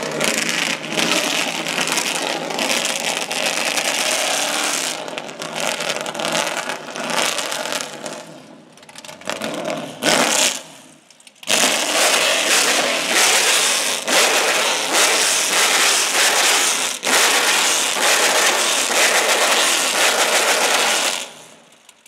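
Heavily modified Nissan Silvia's engine revving hard in repeated bursts, with loud crackling from the exhaust. It drops away for a few seconds in the middle, then revs again for about ten seconds and dies down near the end.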